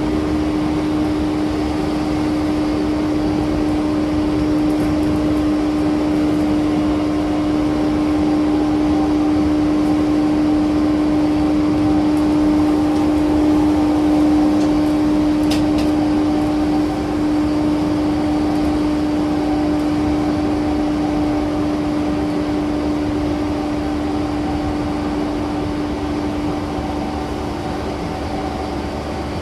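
Running sound inside a JR East E235-series 1000 EMU cruising at steady speed: a steady motor and inverter hum held at one pitch over rumbling wheel and rail noise, with a brief faint click a little past the middle.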